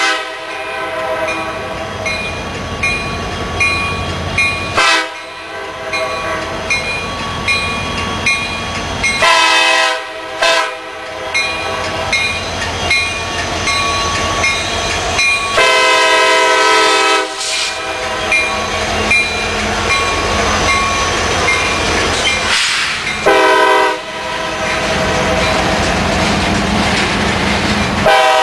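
CSX diesel freight train passing close by, the lead locomotive sounding its horn in repeated blasts, the longest lasting nearly two seconds about midway. Between and after the blasts, the locomotives and then the loaded flatcars rumble past with wheel clatter.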